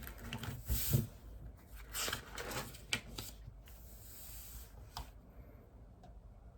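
Papers and study things handled on a desk: rustling in irregular bursts with a few sharp clicks, growing quieter after about five seconds.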